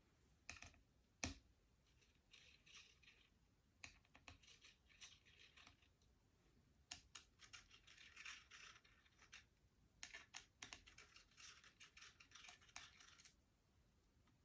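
Faint small clicks and scratchy scraping of an Allen key working the small grub screws on an Artemis P15 air rifle, in short spells of a second or two, with one sharper click about a second in.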